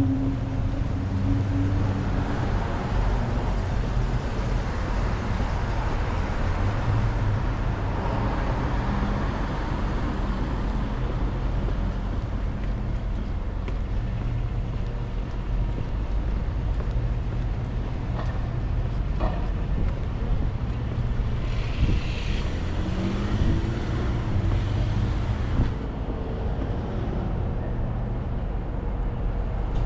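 City street traffic: cars passing with a steady engine rumble and tyre noise.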